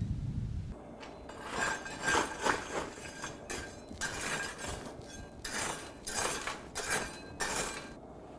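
Metal clinking and clanking: a string of about ten short, rattling hits with a faint ringing tone, starting about a second in.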